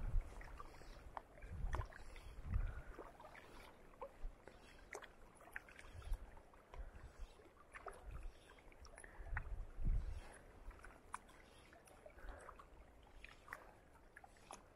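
Small waves lapping and splashing against a shallow rocky shoreline, with a few low bumps on the microphone near the start and again about ten seconds in.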